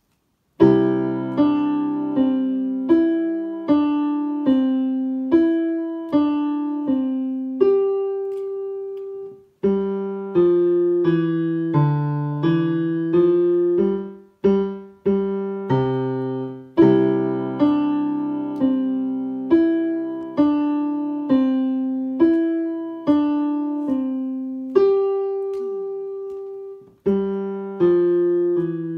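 Digital piano played with both hands in a simple, slow beginner piece: one note or chord struck about every second, each fading before the next, with low notes under a plain melody. Playing stops briefly about a third of the way in, near the middle and near the end.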